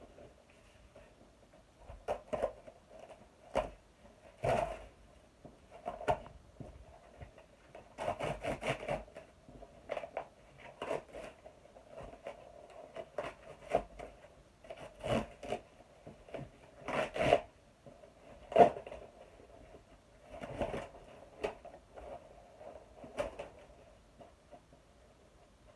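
Cardboard box and its packing being handled and pulled open by hand: irregular scrapes, rustles and tearing, with sharp knocks here and there, the loudest about three-quarters of the way through.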